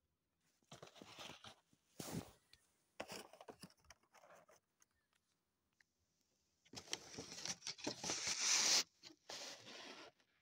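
Hot Wheels Premium blister pack being torn open by hand: the cardboard backing tearing and the clear plastic blister crinkling, in several bursts, with the longest and loudest near the end.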